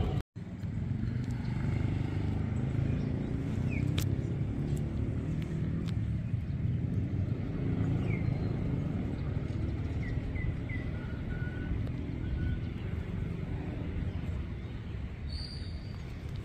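A heavy engine running with a low, steady rumble, after a split-second break in the sound near the start. A few short bird chirps sound over it.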